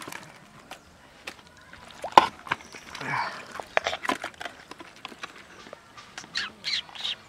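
Live, muddy climbing perch and catfish being dropped into a plastic bucket and shifting about in it: a run of wet slaps, clicks and knocks against the bucket, the sharpest about two seconds in. A few short animal calls come near the end.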